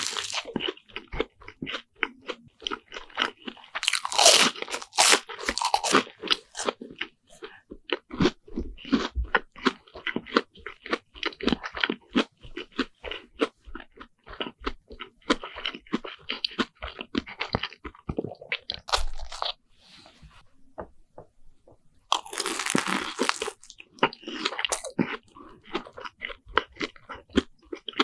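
Close-miked crunching and chewing of deep-fried bread sandwiches, with crisp bites and wet chewing clicks. There is a loud crunch at the start, more heavy crunching around four seconds in, a short lull, then another burst a little after twenty seconds.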